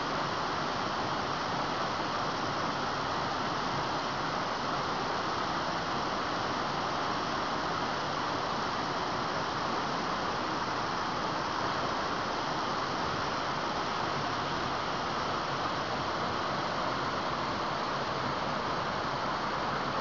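Waterfall: the steady rush of falling water.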